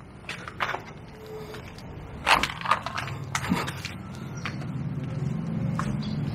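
A few sharp knocks and crunches, the loudest two about two and a half seconds in, with a low engine drone growing louder from about halfway.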